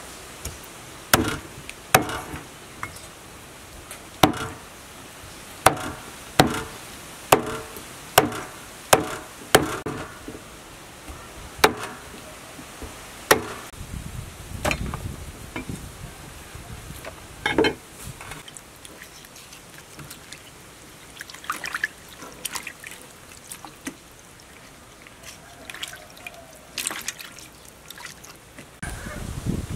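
Meat cleaver chopping raw pork ribs through the bone on a round wooden chopping block, a dozen or so sharp chops at uneven spacing over the first half. After that, quieter splashing and trickling of water as hands work the meat and dried red chillies in bowls of water.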